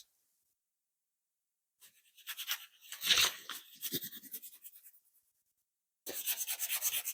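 Sandpaper rubbed back and forth over a painted steel fork leg, flatting the damaged paint, in two spells of quick rough strokes with a short pause between.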